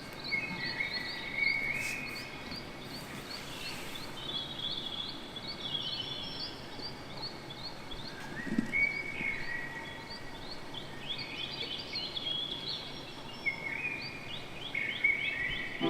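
Birds singing: many quick high chirps repeated in rapid trills, with longer whistled phrases a little lower coming in and out, over a light steady hiss.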